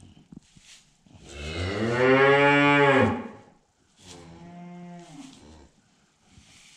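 Charolais cow mooing: one long, loud moo whose pitch rises and falls, then a shorter, quieter moo a second later.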